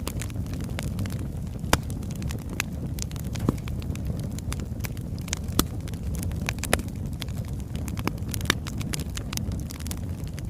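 Wood fire burning with a steady low rumble and irregular sharp crackles and pops from the logs, a few louder pops scattered throughout.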